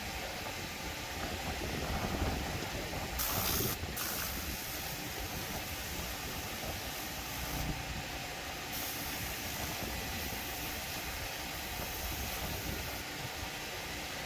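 Compressed air hissing from an air blow gun as a pickup's interior is blown out, with two louder blasts about three seconds in and again around eight seconds in, over a steady low rumble.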